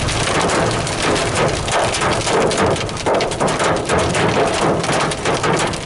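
Heavy storm downpour pelting a car's roof and windshield, heard from inside the car: a dense, loud patter of hits over a steady rush.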